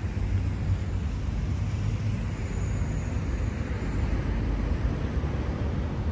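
Steady low rumble with a hiss above it: outdoor background noise.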